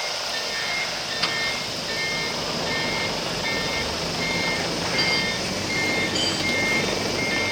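A heavy vehicle's reversing alarm beeping steadily in two alternating pitches, over a diesel engine running. There is a single short click about a second in.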